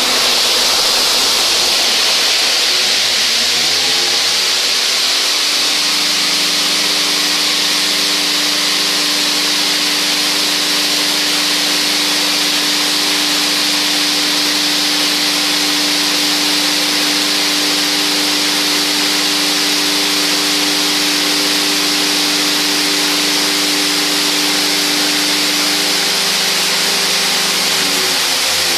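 Magnetic pin deburring machine running: a loud, steady hiss of water and fine pin media churning in the bucket over an electric hum. The hum rises in pitch over the first few seconds as the magnetic drive spins up, holds steady, then slides down near the end as it winds down.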